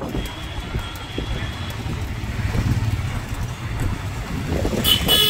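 Auto-rickshaw engine running with road noise as it drives along, and a horn toots briefly near the end.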